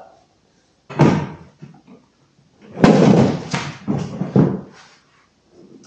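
Handling noise: a sharp knock about three seconds in, followed by several rustling, scraping bursts. A shorter burst comes about a second in.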